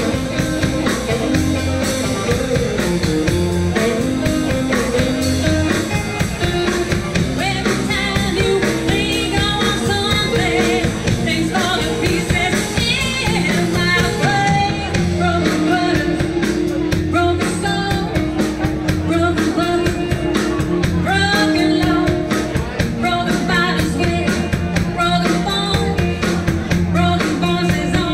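Live rockabilly band playing: a woman singing over electric guitar, electric bass and drums.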